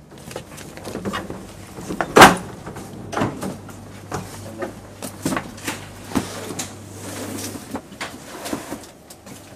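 Irregular knocks and clunks, the loudest a single heavy thump about two seconds in, over a low steady hum that stops about three-quarters of the way through.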